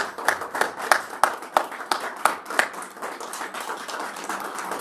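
A room of people applauding, with sharp single claps standing out over the first two or three seconds, then softer, thinner clapping toward the end.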